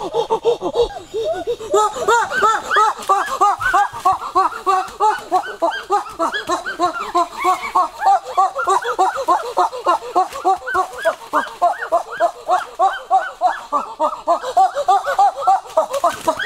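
A flock of domestic turkeys calling: many rapid, overlapping gobbling calls, several a second.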